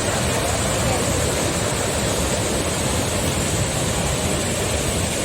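Roar of Athirapally waterfall: a steady, heavy rush of fast-falling water.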